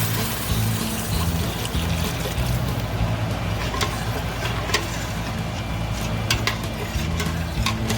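Background music with a steady bass line, over cooking sounds: a few sharp clinks of a utensil against the pot, mostly in the second half.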